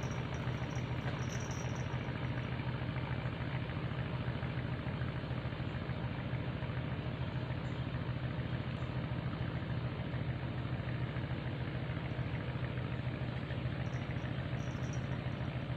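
Steady low drone of an engine running evenly, with no change in pitch or level.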